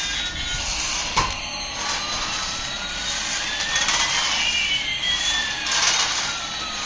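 Jet-engine sound effect, a steady rush with a whine that rises while another falls, and a single knock about a second in.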